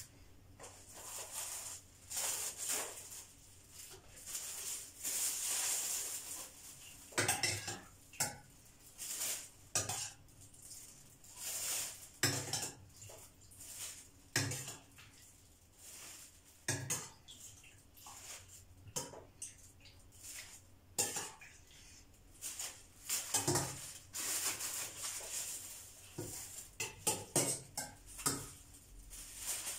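A metal spoon clinking and scraping against a stainless-steel pot at irregular intervals as boiled carrot slices are scooped out, with a plastic bag crinkling as they are dropped in.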